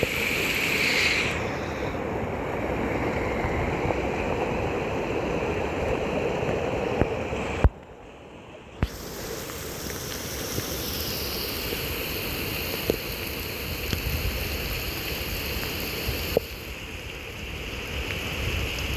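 Heavy rain falling steadily, with a short drop-out about eight seconds in.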